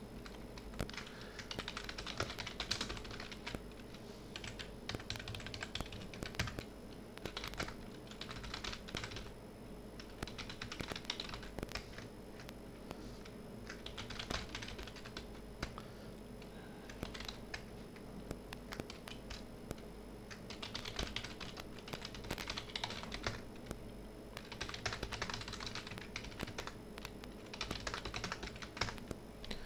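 Computer keyboard typing in short bursts of keystrokes with brief pauses between them, over a faint steady hum.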